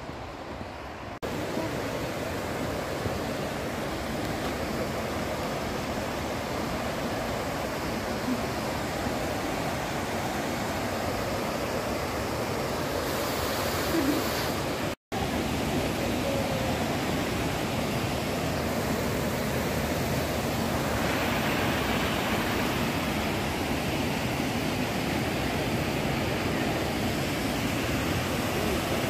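Steady rush of Elk Creek's falling and running water, a constant noisy hiss. It jumps louder about a second in, drops out for an instant about halfway, and turns brighter and fuller in the last third.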